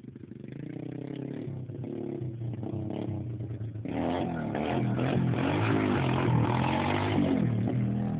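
Pit bike engine revving hard, its pitch rising and falling again and again as the throttle is worked, growing louder as the bike comes closer, with a sudden step up in loudness about four seconds in.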